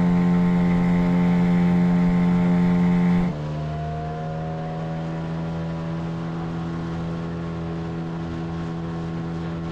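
Hidea 9.9 hp outboard motor running steadily at high speed on a speed run against the current, a constant drone that steps down in loudness about three seconds in.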